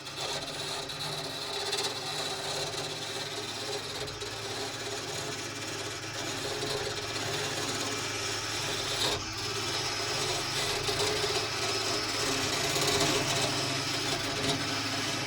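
Wood lathe running while a turning tool cuts a spinning wooden bat blank: a steady scraping hiss over the low hum of the lathe's motor, as the bat's handle is shaped down.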